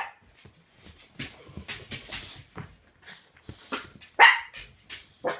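Dogs barking in rough play between a Miniature Pinscher and an American Bulldog: a string of short, sharp barks, the loudest about four seconds in, with quieter scuffling noise between them.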